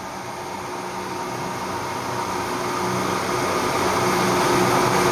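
A steady mechanical hum with a faint whine in it, growing gradually louder.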